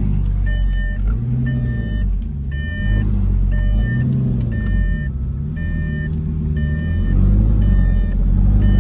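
Lamborghini Gallardo's V10 engine running at low revs, heard from inside the cabin, its pitch rising and falling gently. The car's parking-sensor warning beeps about once a second throughout.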